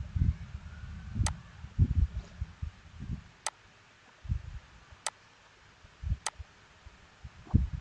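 Computer mouse clicking four times, single sharp clicks a second or two apart, over irregular low, dull thumps near the microphone, loudest about two seconds in.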